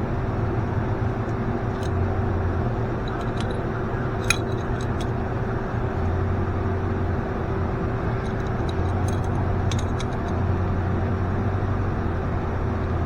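A steady low mechanical hum with a handful of small, sharp metallic clicks, the loudest about four seconds in and a cluster near the end.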